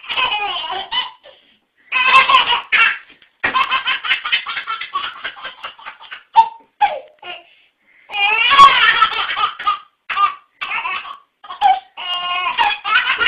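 A baby laughing hard in repeated fits of quick, high-pitched giggles, with short breaks between fits.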